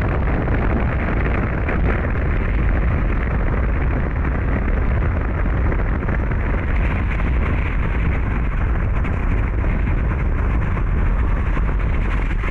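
Steady rumble of a car travelling at highway speed: tyre and wind noise, heaviest in the low end, with no change in pace.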